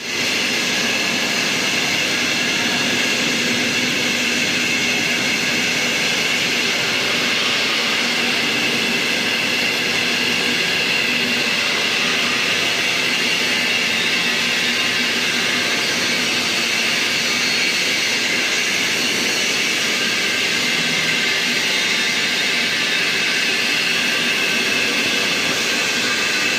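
Argon (TIG) welding arc burning steadily, a continuous even hiss with a faint hum that holds level throughout.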